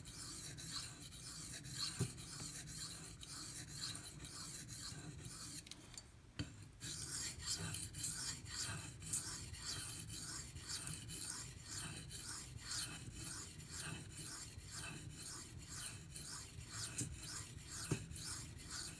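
Knife blade scraping in quick, short sharpening strokes across the 2000-grit side of a Venev bonded diamond stone. The strokes come about three a second as a rasping scrape, with a brief pause about six seconds in.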